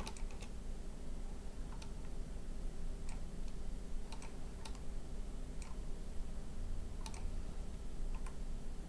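Computer mouse clicking: about ten sharp single clicks at irregular spacing, some close together, over a steady low hum.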